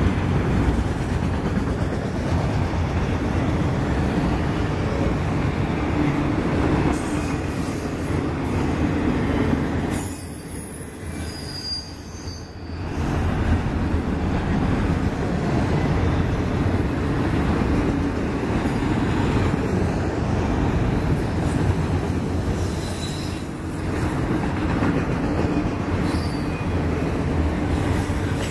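Autorack freight cars rolling past close by: the steady rumble and rattle of steel wheels on rails. It eases off for a couple of seconds about ten seconds in, then picks up again.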